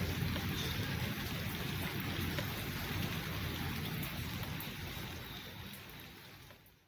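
Rain falling steadily on garden foliage, with a low rumble under the hiss; it fades out over the last couple of seconds.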